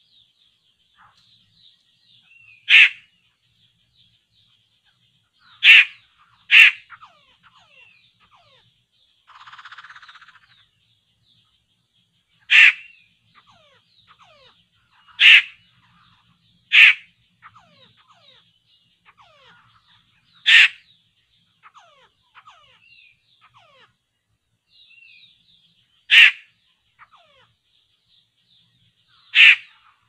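Nine short, harsh, bird-like calls, loud and sharp, spaced a few seconds apart, over a faint steady high chirring. A brief buzz sounds about ten seconds in.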